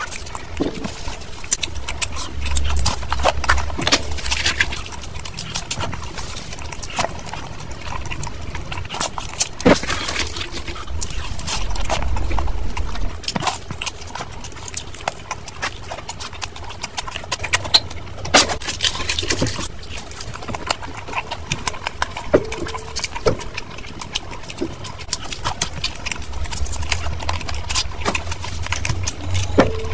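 Close-miked chewing of spicy mutton curry: wet mouth clicks and lip smacks, with now and then a louder sharp click.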